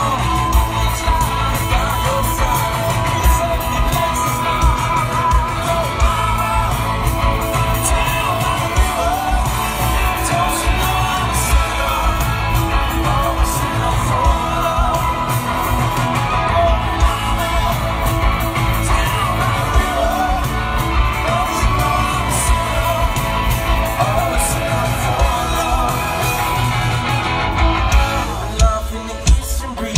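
Live rock band playing loud through the stage PA, heard from the crowd: electric guitars, bass and drums with a singer. Near the end the full band thins out to heavy beats about once a second.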